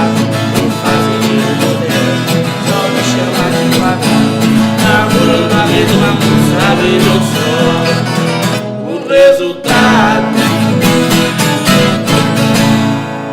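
Viola caipira playing a fast pagode de viola, plucked and strummed in a driving rhythm, with a short break about nine seconds in before the playing resumes and closes the piece near the end.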